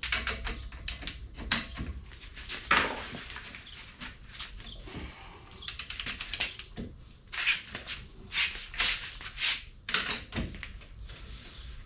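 Irregular clinks, clicks and knocks of hand tools and metal parts being worked, with a quick run of clicks a little past halfway and several louder knocks later on.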